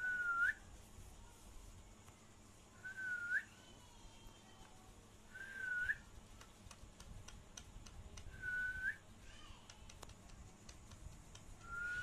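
Rose-ringed parakeet whistling: a clear, pure whistle about half a second long, held level and then rising sharply at the end, repeated five times every two to three seconds.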